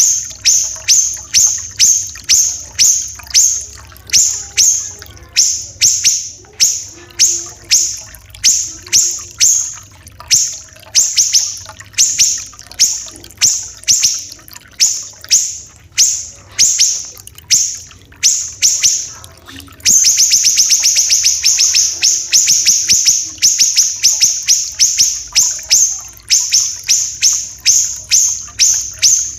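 Siri-siri kecil song: loud, sharp, high notes repeated rapidly, about three a second. About two-thirds of the way through they run together into a faster, continuous trill.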